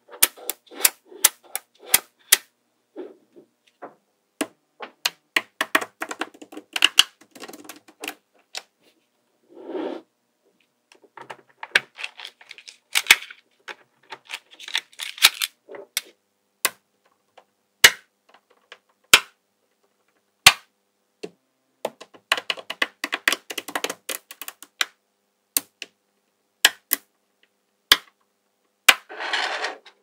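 Small magnetic metal balls snapping together with sharp, irregular clicks as sheets of them are pressed together and stacked, with stretches of softer rattling as the balls roll and settle against one another.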